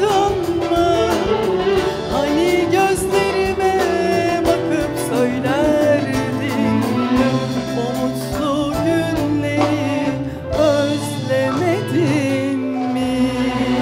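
Female soloist singing a Turkish art music (Türk Sanat Müziği) song with instrumental accompaniment, including clarinet. Her voice wavers with vibrato, and she holds a long note near the end.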